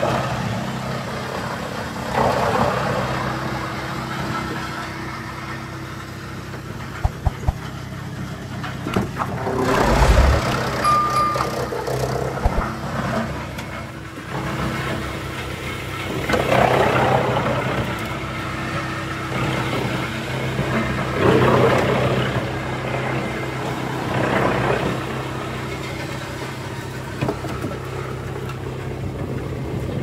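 Wood chipper and its log infeed conveyor running steadily, with a louder noisy burst about a second long every few seconds as logs are fed in and chipped, and a few sharp clicks near the quarter mark.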